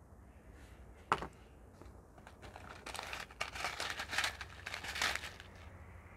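Plastic and foil ration packaging crinkling and rustling as packets are handled, with a single sharp knock about a second in.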